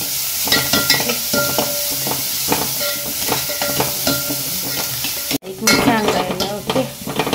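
Chopped onions sizzling as they fry in oil in an aluminium pot, with a metal spoon stirring and scraping against the pot in short strokes. The sound drops out for an instant about five seconds in.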